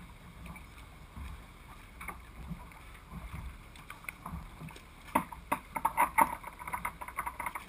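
Choppy river water lapping against a race boat's hull, with a run of sharp, irregular slaps and splashes starting about five seconds in.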